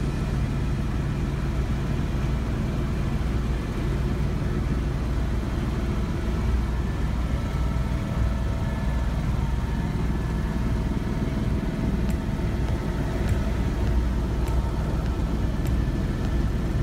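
Helicopter cabin noise in flight: a steady low rumble from the engine and rotor, with a faint steady whine above it.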